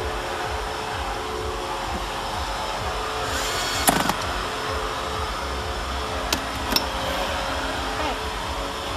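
A steady whirring noise with a few sharp clicks or knocks: a cluster about four seconds in and two more between six and seven seconds.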